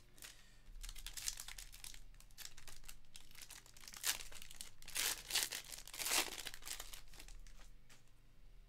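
Trading-card pack wrapper crinkling and tearing as it is opened by hand, in a run of short crackly bursts, loudest about four to six seconds in.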